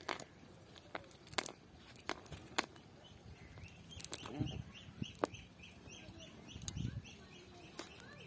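A cast net being handled on wet ground: scattered sharp clicks and soft low thuds. From about three seconds in, a bird calls over and over, short rising notes about three a second.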